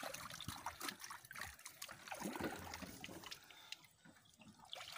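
Water trickling and splashing, with scattered small knocks and clicks.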